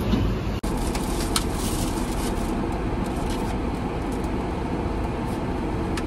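Steady low hum inside a parked car's cabin, with a few faint clicks.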